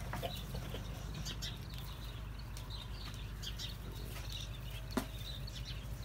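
Animal pen ambience: scattered short, high bird chirps and clucks over a steady low hum, with one sharp knock about five seconds in.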